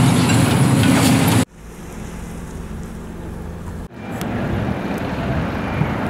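Tracked excavator (a Hidromek 310) with its diesel engine running loudly, over clatter, for about a second and a half. It cuts off abruptly to a quieter steady rumble, which changes again about four seconds in.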